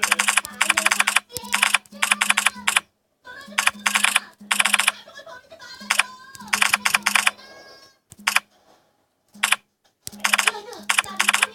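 Typing on a smartphone keyboard app: quick runs of key-tap clicks, several taps in a row, broken by short pauses.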